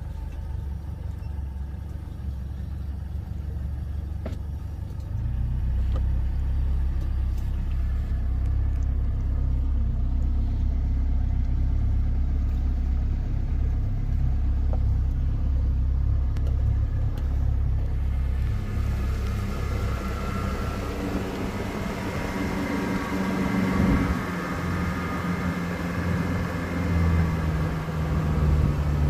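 A boat's engine running under way with a steady low rumble. About eighteen seconds in, a loud rush of wind and water noise comes in, and the engine's tone shifts a little in pitch.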